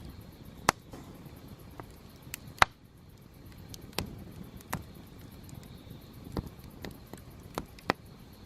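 Wood campfire crackling: irregular sharp pops and snaps from the burning firewood, two louder ones about a second and nearly three seconds in, over a low steady rustle of the flames.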